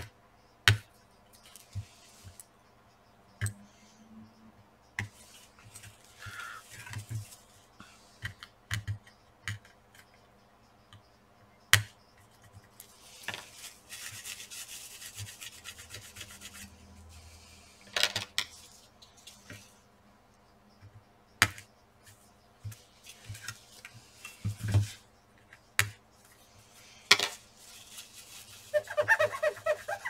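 Scattered sharp clicks and taps of tools and the graphics card being handled, with stretches of soft rubbing and scraping as old thermal paste is cleaned off the GPU die.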